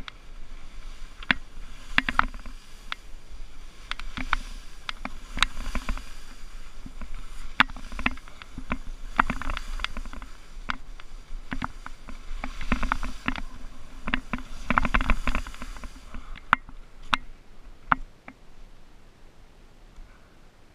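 Skis sliding and turning through slushy spring snow: a scraping hiss broken by many sharp clicks and clatters, with a low rumble of wind on the microphone. After about sixteen seconds it dies down to a few separate clicks.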